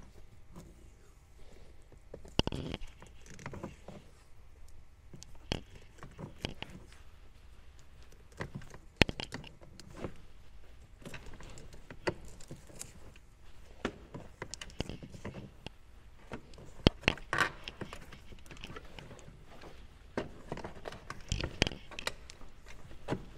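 Black electrical tape being pulled off the roll and wrapped around a wiring harness. Irregular rustling and crackling, with sharp clicks as the wires and tape roll are handled.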